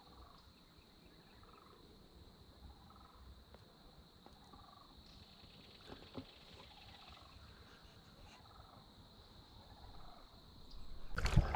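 Faint natural ambience of a steady high insect trill, like crickets, with a short low animal call repeating every second or so. Just before the end a sudden, much louder rush of noise cuts in.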